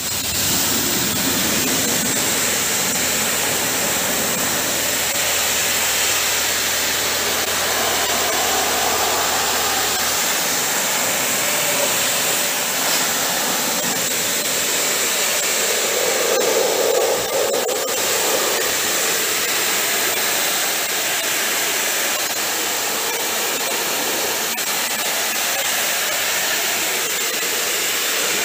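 Steady hiss of a pressure-washer jet spraying water onto a car radiator, rinsing off snow foam. A low hum underneath stops about ten seconds in.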